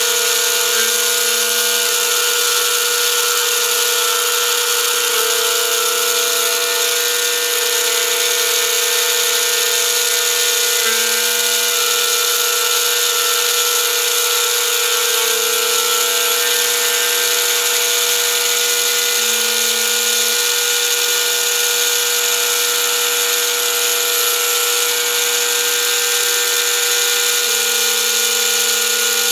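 Overhead drive spinning a rose engine lathe's drilling frame cutter as it bores into the side of a walnut tube: a steady, even motor whine and hiss.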